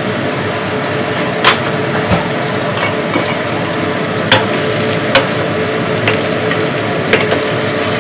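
Shrimp sizzling and bubbling in a nonstick wok with a little water and white rice wine: a steady hiss over a low steady hum, broken by a few sharp clicks, the loudest about a second and a half in.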